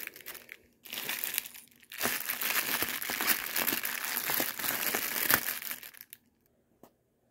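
Clear plastic packaging bags crinkling as they are handled and shifted around, in two short spells and then a longer continuous stretch that stops about six seconds in.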